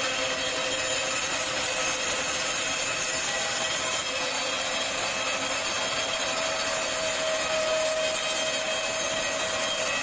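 Wimmer BN 150 horizontal band sawmill cutting steadily through a large log, the band blade giving a steady whine over the cutting noise.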